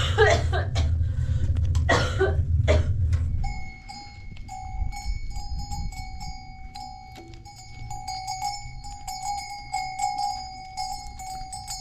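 A low rumble with a few sharp bursts over it, cutting off about three and a half seconds in. Then a bell rings on and off continuously, its clear tones breaking and resuming.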